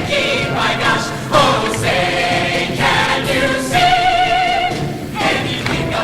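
A show choir singing in harmony, with sustained chords that shift every second or so; a note is held with vibrato near the end.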